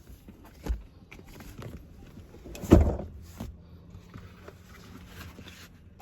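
A few scattered knocks and thumps, the loudest about three seconds in and a smaller one near the start, with light clicks between.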